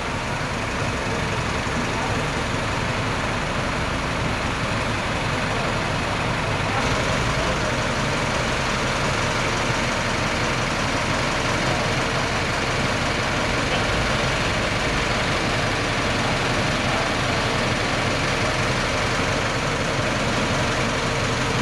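Diesel semi-truck tractor engine running steadily at low speed.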